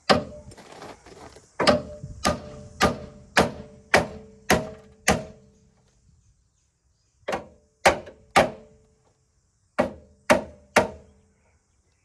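Hammer blows ringing on the steel chassis rail of a car, about fifteen strikes: a steady run of seven about every half second, a pause, then two sets of three. The rail is being hammered while it is held under pulling tension, to relieve the metal so it holds its straightened shape instead of springing back.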